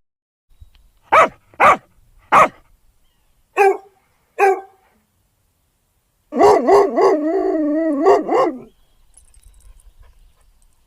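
Animal calls: five short pitched calls, then one long wavering call lasting about two seconds.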